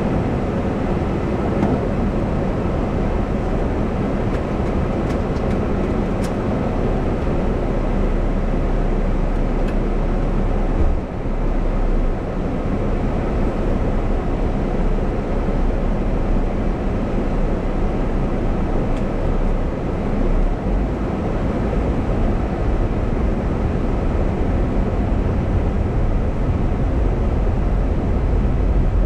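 Car running, a steady low noise of engine and road heard from inside the car.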